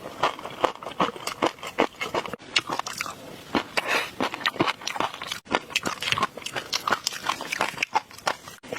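Close-miked ASMR eating: dense, rapid crunching and chewing clicks, with brief dropouts where the clips are cut together.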